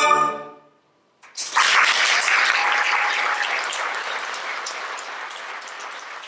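The last chord of an orchestra with solo violin, which ends about half a second in. After a brief silence the audience breaks into applause that slowly fades.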